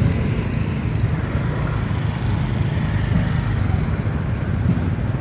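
Steady low rumble of a road vehicle running.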